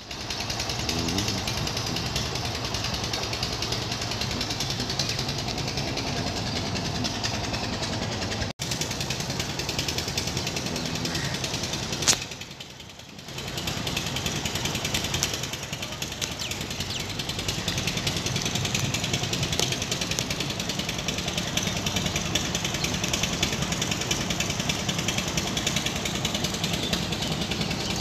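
Bedford truck engine idling with a steady, rapid clatter. It drops out briefly twice, once about a third of the way in and again a little after that.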